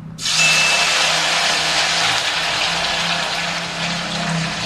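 Loud, steady sizzling of hot frying oil in a kadai as pressure-cooked, drained beef pieces are slid in from a slotted ladle, the meat's leftover moisture spitting in the oil. It starts suddenly just after the start and holds at an even level throughout.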